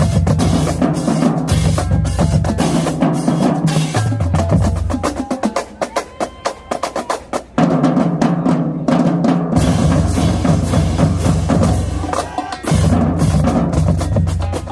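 High school marching drumline playing a fast cadence: snares and bass drums pounding together. About five seconds in the playing drops to quieter rapid clicking strokes, then the full line crashes back in loud about halfway through.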